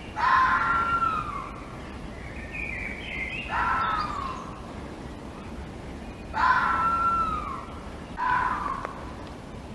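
A fox calling five times in short calls of about a second each, most of them sliding down in pitch, with a steady hiss underneath.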